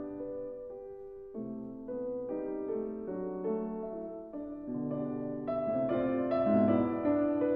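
Background music: a piano melody played at an unhurried pace.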